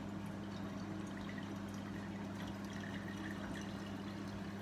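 Liquid of Skittles dissolved in hot water being poured into a container, over a steady low hum.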